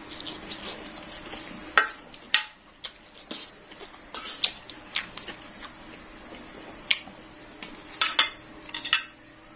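Metal fork and spoon clicking and scraping against a stainless steel tray, about ten sharp clinks spread unevenly through, over a steady high insect chirring.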